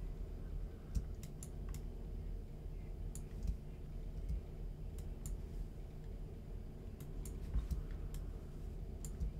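Scattered, irregular clicks of a computer mouse placing pieces in a map-making program, over a low steady hum.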